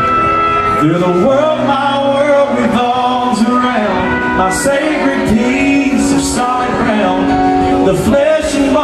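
Live country song: a man singing into a microphone over strummed acoustic guitar and a backing band.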